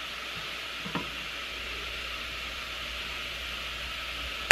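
Onions, mushrooms and garlic sizzling steadily as they sauté in melted butter in a pot, with one faint tap about a second in.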